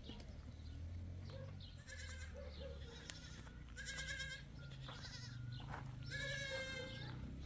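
Goats bleating: three high, quavering calls, the last one the longest.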